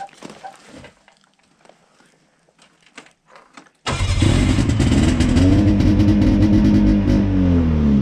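Old Ski-Doo Safari snowmobile's two-stroke engine, not run for a while, catching suddenly about four seconds in after a few faint clicks and running loudly, its revs sagging toward the end.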